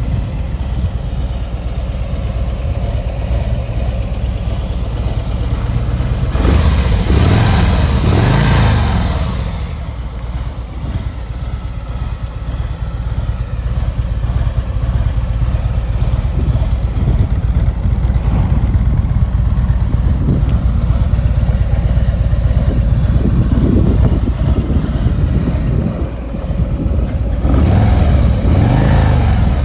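Harley-Davidson Road King Special's 1868 cc Milwaukee-Eight 114 V-twin idling, revved up and back down twice: about seven seconds in and again near the end.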